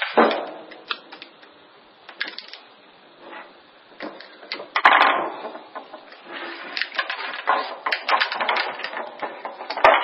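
Irregular clicks, scrapes and knocks of a flat-tip screwdriver working against a microwave oven transformer's laminated steel core and copper winding as the winding is pried loose. The loudest bursts of scraping come about five seconds in and again around eight seconds.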